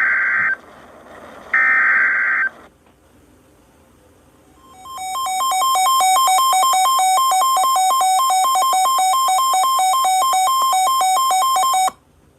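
Emergency Alert System signal for a flash flood warning. Two harsh, buzzing data bursts of the SAME header end about two and a half seconds in. After a short pause comes a loud electronic attention tone that rapidly alternates between two pitches for about seven seconds and then cuts off abruptly.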